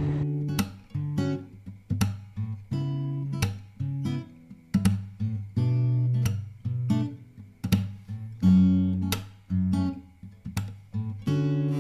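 Background music: an acoustic guitar picking notes and chords, one plucked note every half second to a second, each left to ring.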